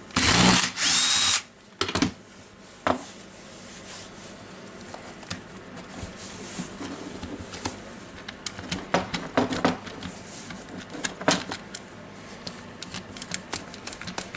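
Electric screwdriver running in two short bursts at the very start, about half a second each, then light clicks and knocks of small parts being handled.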